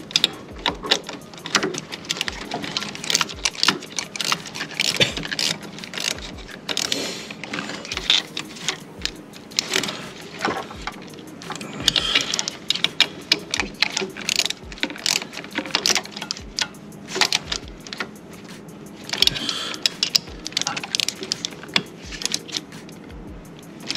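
Socket ratchet clicking and hand tools clinking on metal as the nuts on a throttle body are worked: many small sharp clicks at an uneven pace.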